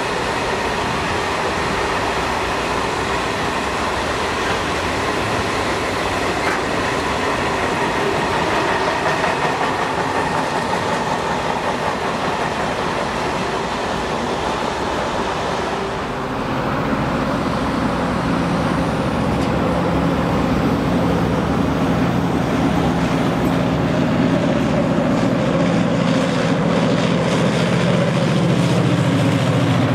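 Freight train wagons rolling steadily past on the rails. About halfway through the sound changes to a passing locomotive, a steady low engine drone over the noise of its wagons rolling.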